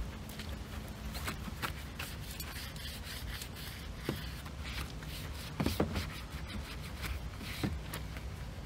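Long-handled car wash brush scrubbing wet, soapy car bodywork: a run of short scratchy rubbing strokes, with a few sharper knocks, the loudest about six seconds in. A steady low rumble runs underneath.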